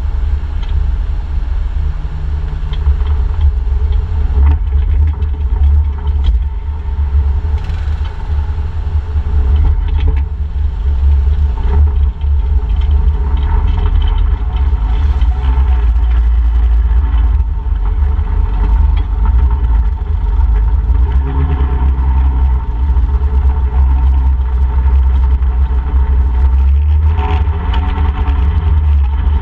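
ATV engine running while riding, over a heavy, constant low rumble.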